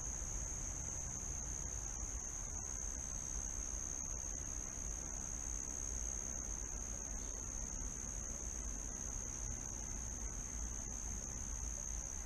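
Insects in chorus at dusk, a continuous high-pitched shrill that holds steady without a break, over a low background rumble.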